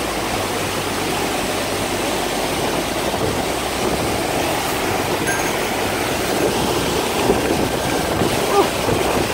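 Waterfall and whitewater rapids rushing over rocks close by: a loud, steady rush of water.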